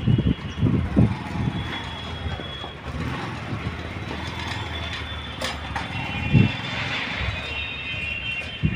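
Bajaj CT 110's single-cylinder four-stroke engine running at low speed while the converted three-wheeler is driven, with several brief surges of throttle.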